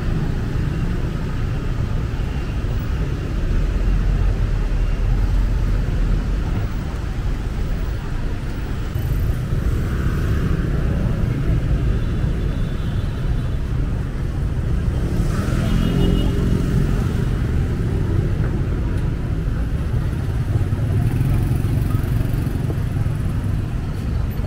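Busy street traffic of motorbikes and cars running and passing in a steady hum, with one louder pass about two-thirds of the way in.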